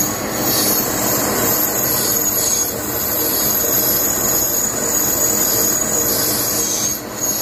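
Metal lathe cutting a very hard steel part: steady machining noise with a high, sustained squeal from the cutting tool. The squeal goes with the hardness of the steel, which the machinist says takes half an hour to cut even a little.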